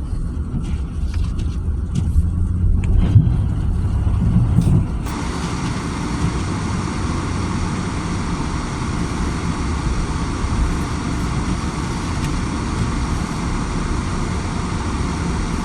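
Car driving on a snowy road, heard from inside the cabin: a low engine and tyre rumble with a few clicks and knocks. About five seconds in, a steady hiss comes in suddenly and holds.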